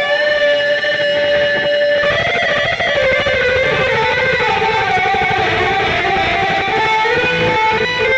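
Electric guitar playing a slow lead melody: a long held note, then notes that slide and bend in pitch.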